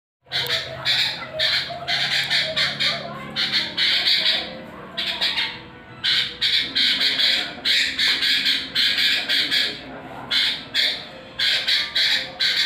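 Sooty-headed bulbul (kutilang) calling in full voice: a fast, continuous run of short, harsh notes, with a brief lull about five to six seconds in.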